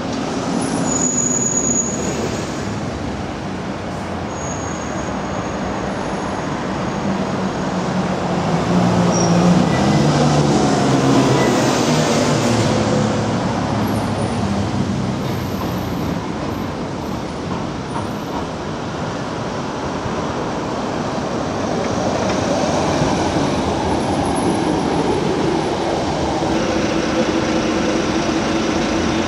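Road traffic passing on the street beside a tram track, with the loudest pass, a low rumble, about ten seconds in. Near the end a low-floor tram comes up the track, and a steady hum joins the traffic noise.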